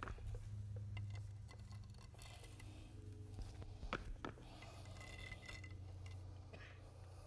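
Spiked shoes stepping on a wet epoxy floor: a few faint clicks and light knocks, the sharpest near the start and about four seconds in, over a steady low hum.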